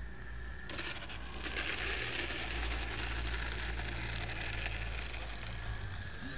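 Faint steady whine of an FMS PT-17 Stearman RC biplane's electric motor as it comes in to land, overtaken about a second in by a louder rushing noise that slowly fades.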